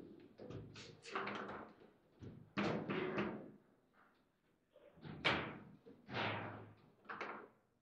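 Table football in play: irregular sharp knocks and thuds as the ball is struck by the figures and the rods are worked, each with a short ringing tail. The loudest knocks come about two and a half and five seconds in, with a brief lull just before the second.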